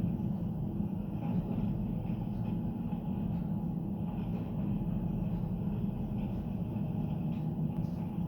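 Heavy machinery engine running, a steady low rumble.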